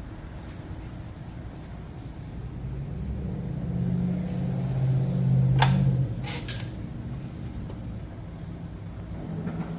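A low engine-like hum swells over a few seconds and drops away about six seconds in. Two sharp metal-on-metal clinks ring out near the middle, from metal parts being handled while the motorcycle's front axle is worked out.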